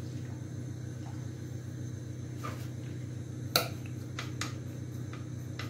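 Silicone spatula stirring a mixture in a stainless steel saucepan, with several clicks and taps of the utensil against the pan, the loudest about three and a half seconds in. A steady low hum runs underneath.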